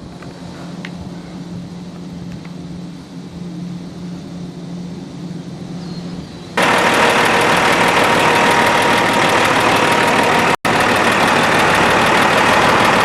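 A tub grinder's 300-horsepower Caterpillar diesel engine running steadily. About halfway through, the sound suddenly becomes much louder and harsher, and it has a split-second dropout near the end.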